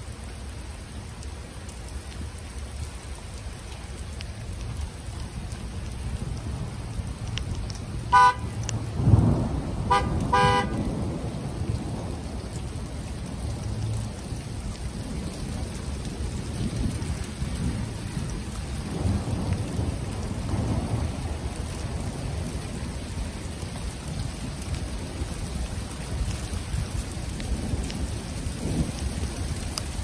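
Steady rain, with thunder rumbling low several times, loudest about a third of the way in. Just before that peak, a car horn beeps twice briefly.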